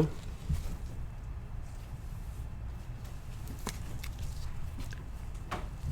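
Faint handling of baseball trading cards, with a few soft clicks as cards are shifted and flipped, over a steady low hum.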